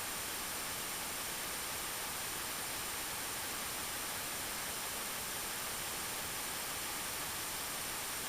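Rain sound effect: a steady, even hiss of rainfall, with no separate drops or gusts standing out.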